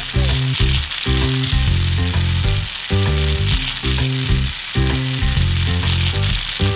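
Steady hiss of air rushing out of balloons, a cartoon sound effect, over bouncy children's background music.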